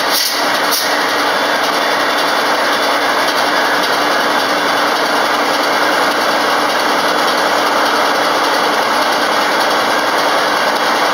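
Steady, loud hissing noise with a faint low hum beneath it, unchanging throughout.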